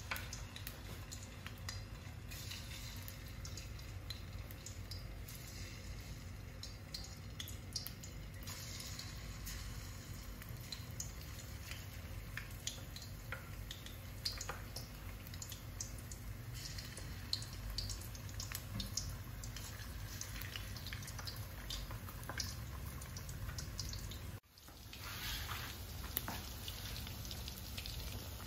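Marinated, flour-coated chicken pieces deep-frying in hot oil in a karahi: steady sizzling and bubbling, dotted with many small crackles. The sound breaks off briefly about 24 seconds in and comes back brighter.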